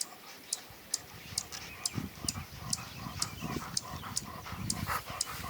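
German shorthaired pointer panting hard, a quick steady rhythm of breaths that gets louder about two seconds in, with a sharp high tick about twice a second.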